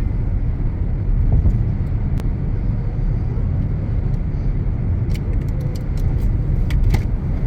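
Strong wind buffeting the microphone: a loud, gusty low rumble, with a few sharp clicks about two seconds in and again near the end.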